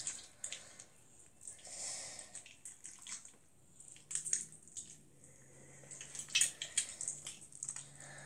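Rippy slime softened with lotion being squeezed and stretched in the hands, giving faint, irregular wet squishing with small sticky clicks and crackles.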